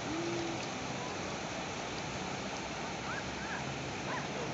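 Ocean surf breaking on a sandy beach, a steady rushing wash of waves.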